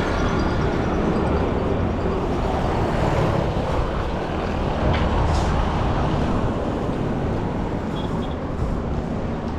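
Street traffic noise: a steady, dense rumble of passing vehicles, with a brief high double chirp about eight seconds in.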